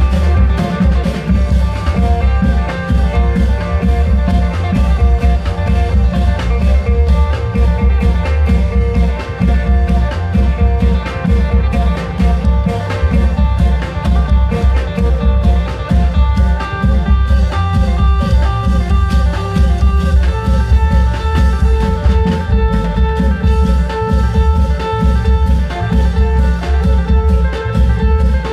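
Amplified Isan klong yao long-drum band music: heavy, repeated drum beats under a melody of long held notes from a plucked-string or keyboard-like instrument.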